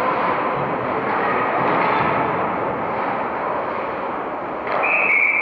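Ice hockey game noise in an indoor rink: skates and sticks on the ice and a murmur from the stands, all blended into a steady wash. Near the end a referee's whistle gives one long, high blast that stops play.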